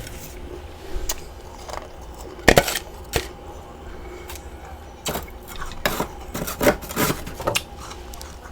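Chunks of humidifier freezer frost being bitten and chewed, in separate irregular crunches, the loudest about two and a half seconds in and a quick run of them in the second half.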